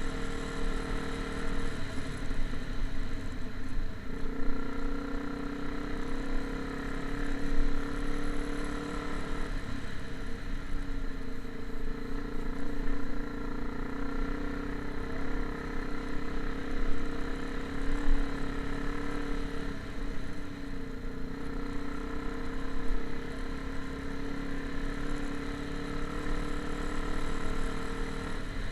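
An engine running steadily, its pitch shifting slightly a few times.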